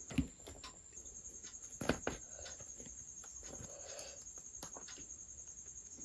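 Close-miked eating sounds: a flaky laccha paratha torn apart by hand with small crisp crackles, and two sharper snaps about a quarter second and two seconds in, then soft chewing and mouth sounds.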